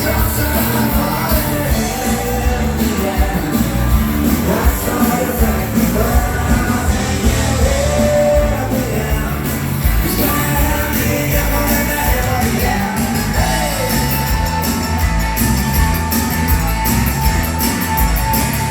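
Dansband playing live: a sung song over drums and full band backing, with a long held vocal note in the second half.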